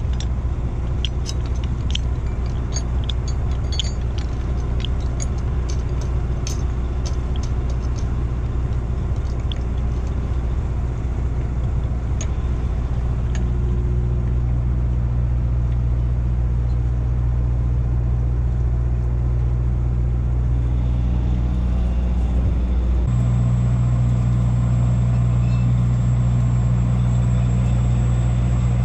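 Boat engine running steadily with a low drone, with light metallic clinks in the first third from the shackle, hook and towing block being handled on the trawl cable. About two-thirds through, the drone steps up and a faint high whine joins it.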